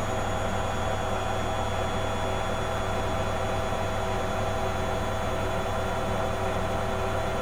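Servis MK322 washing machine's brush motor driving the drum in a spin, running steadily with a low hum and several constant whining tones.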